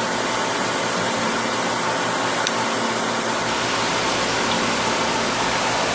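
Steady whooshing hum of running equipment, like fans or water pumps, with a faint constant tone in it.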